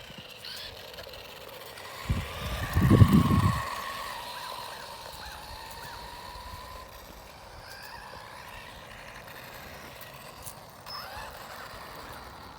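Brushless electric motor of an RC truck whining, its pitch rising and falling as it speeds up and slows. A loud low rumble comes about two seconds in.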